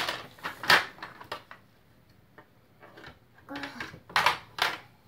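Plastic shape-sorter blocks clacking and rattling against each other and the hard plastic box as they are handled. There are several sharp knocks in the first second and a half, a pause, then another cluster of clacks near the end.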